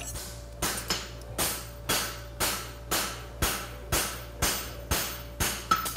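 Hand hammer striking hot horseshoe steel on an anvil in a steady rhythm of about two blows a second, each blow ringing briefly.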